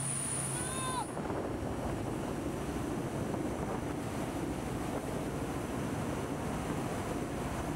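Wind buffeting the microphone and water rushing past a small patrol boat under way at speed, a steady loud rush. A brief falling whistle-like tone about a second in.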